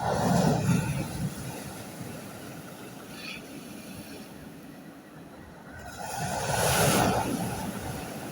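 Sea waves breaking on a beach: one wave crashes suddenly at the start and washes away over a couple of seconds, then a second wave builds, breaks about seven seconds in and drains back.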